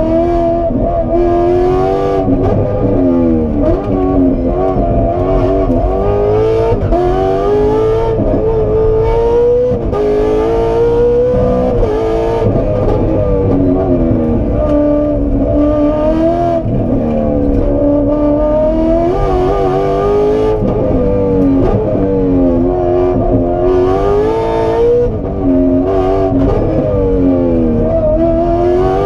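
Aston Martin Vantage rally car's engine driven hard, heard from inside the cabin: the pitch climbs as it revs up, then drops sharply at each gear change or lift, over and over every few seconds.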